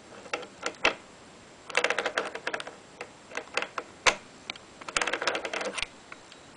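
Basin wrench turning a faucet mounting nut counterclockwise: its serrated jaws click and rattle against the nut in two bursts of rapid clicks, each about a second long, with single clicks between.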